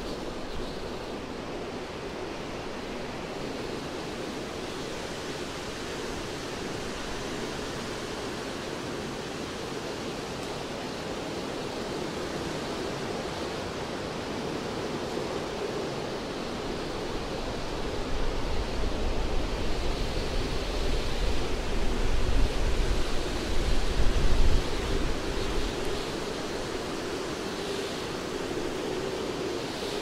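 Wind rushing steadily through the crowns of pine trees. Past the middle a stronger gust builds for several seconds, with a low rumble of wind buffeting the microphone, then eases off.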